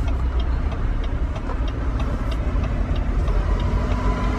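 Semi-truck diesel engine running at low speed, heard from inside the cab while the rig is slowly manoeuvred: a steady low rumble with a light, regular ticking about four times a second.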